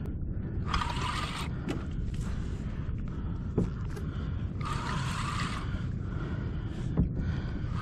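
Wind buffeting the microphone over open water, a steady low rumble. Three short hissing surges of water against the kayak come about every four seconds.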